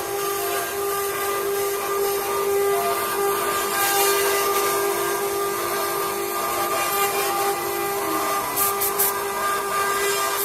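Eight-head CNC wood carving router running: a steady whine from its spindles over a hiss of cutting, with one tone dipping slightly in pitch about eight seconds in.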